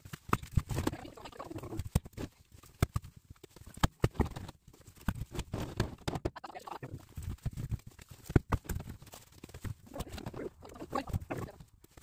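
Firewood being handled and stacked: irregular sharp knocks and clunks of split logs, with scuffing and rustling between them.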